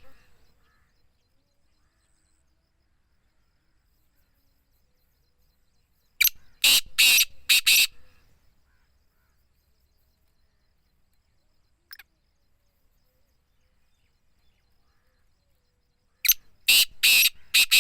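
Black francolin calling twice, each call a quick run of about five short, loud notes lasting under two seconds. The first call comes about six seconds in and the second near the end, with near silence between.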